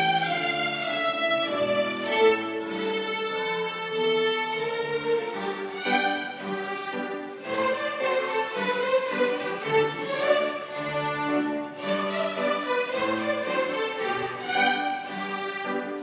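A large ensemble of children's violins playing a tune together, bowing held notes that move from pitch to pitch.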